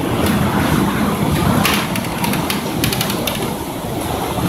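Loud, steady rush of tornado wind and rain, with a run of sharp hits against the vehicle around the middle.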